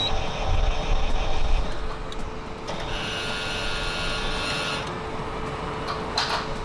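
Anritsu MA517 metal detector running with a steady hum. A higher buzzing tone sounds for about two seconds in the middle, and there are a few short clicks near the end.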